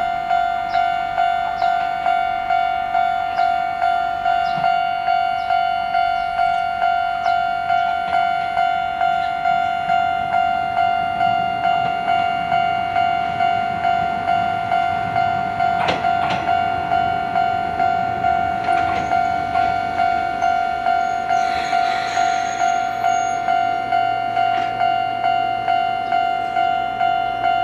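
Japanese level-crossing warning bell ringing steadily, about one and a half strokes a second. Under it is train running noise, with a sharp clunk about 16 seconds in, a brief hiss around 22 seconds, and a low steady train hum that sets in from then on.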